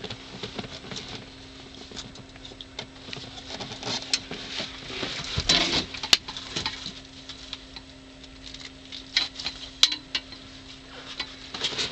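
Irregular taps, knocks and rustling from gear and the camera being handled, with a denser cluster of knocks about five and a half to six seconds in, over a steady low hum.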